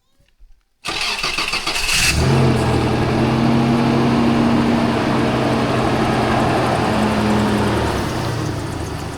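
Truck engine cranking on the starter for about a second, catching, then idling steadily, its pitch easing down slightly near the end.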